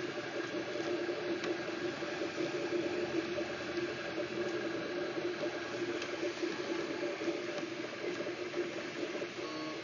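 Filament 3D printer running mid-print, a steady whirring hum with several held tones as it extrudes melted plastic.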